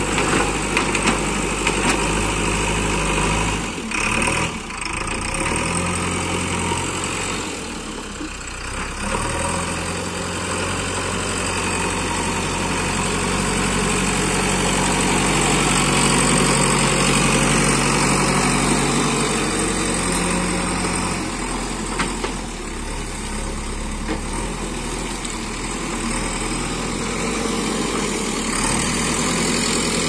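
JCB 3DX backhoe loader's diesel engine running while the front loader bucket digs and lifts earth; the engine note rises and grows louder under load through the middle, then settles back toward idle.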